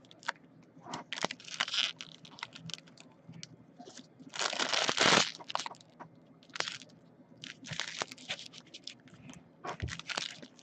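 Trading-card packs being torn open and their wrappers crinkled, in irregular short rustles, with one longer, louder rip about four seconds in.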